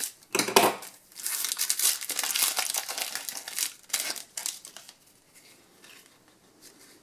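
Foil trading-card booster pack crinkling as it is opened and the cards are pulled out of it. The crinkling dies away after about five seconds.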